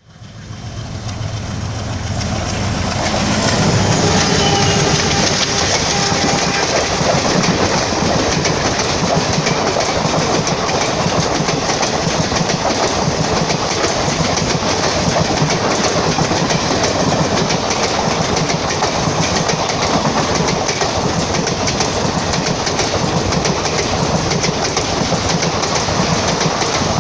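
Express passenger train passing at high speed. The sound builds over the first few seconds as the locomotive arrives, then settles into a steady loud rush of coaches with a fast clatter of wheels over the rail joints.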